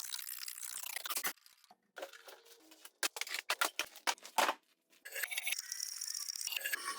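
Woodworking shop sounds in three short stretches with brief gaps between: rapid clicking and scraping of tools working wood.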